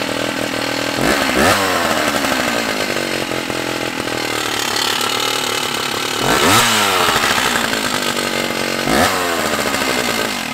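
Stihl 056AV chainsaw's 81cc two-stroke engine running at idle and revved up several times, the pitch climbing and dropping back each time. The saw is running on a newly fitted replacement for its failing Bosch ignition module. The engine cuts off at the very end.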